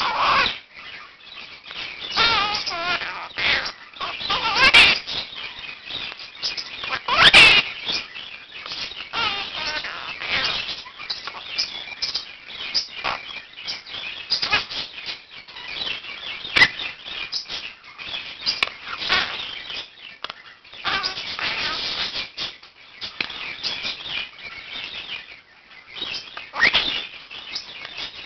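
Pet birds calling, with a Quaker (monk) parakeet among them: a dense string of short squawks and chirps at irregular spacing. The loudest calls come about five and seven seconds in, the second rising in pitch.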